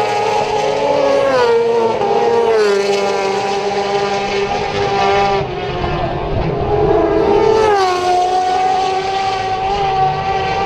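Superbike engines running hard at high revs on the circuit, several engine notes at once, their pitch sliding down about a second and a half in, again around five seconds, and again near eight seconds.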